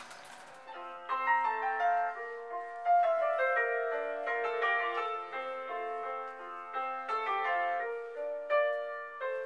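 Background piano music: a slow melody of single notes, each one fading after it is struck.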